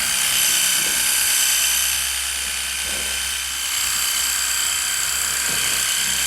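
WORX WG625E cordless pressure washer running steadily, its small electric pump whining under the hiss of the water jet.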